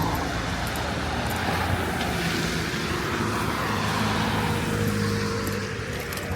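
Road traffic: a car's engine and tyre noise, swelling and easing as it goes by.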